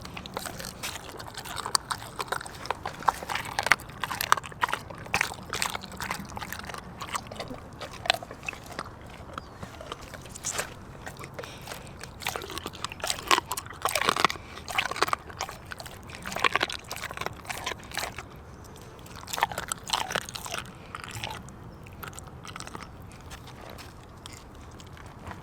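Cane Corso mastiff chewing raw chicken pieces, with repeated wet crunches and bites coming in irregular bunches.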